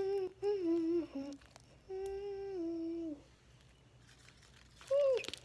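A girl humming a tune with her mouth closed: a few held notes in short phrases, the longest just over a second and stepping down in pitch, then a brief rising-and-falling note near the end.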